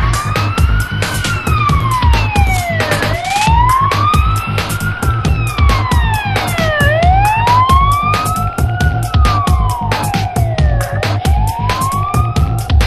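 A siren wailing, slowly rising and falling about every four seconds, over electronic music with a fast, steady beat. A steady held tone joins near the end.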